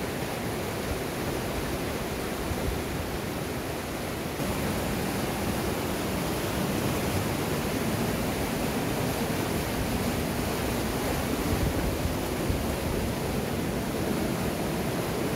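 Monsoon-swollen mountain river rushing over whitewater rapids: a steady, full rush of water, a little louder from about four seconds in.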